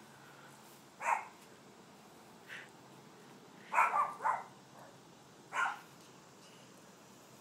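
A dog barking in short single barks, with a quick run of three about four seconds in.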